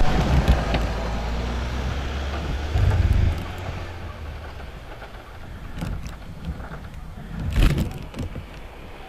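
A motor vehicle's engine rumbles low and steady, then fades away about three seconds in. A few light knocks follow, then a louder thump near the end.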